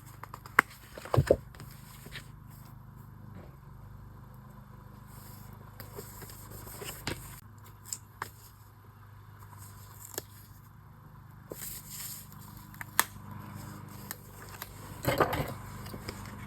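Paper and sticker handling: scattered light clicks, scrapes and rustles as paper pieces are moved and pressed onto a journal page, with a longer rustle near the end.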